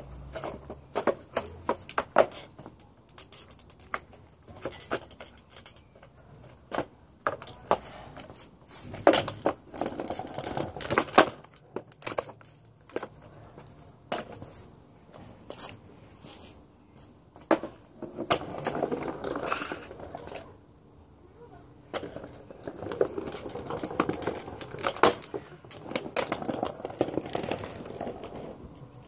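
Kids' kick scooter on brick block paving: its small plastic wheels rattle as it rolls, with many sharp clacks of the deck and wheels hitting the ground as hops and spins land. Several stretches of rolling rattle come and go.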